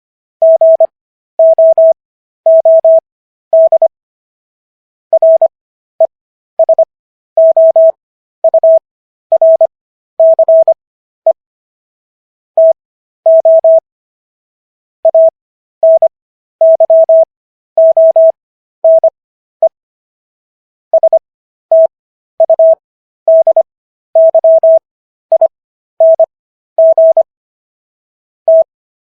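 Morse code practice tone: a single mid-pitched beep keyed on and off in dots and dashes. Characters are sent at 25 words per minute with extra Farnsworth spacing between them for an overall 15 words per minute.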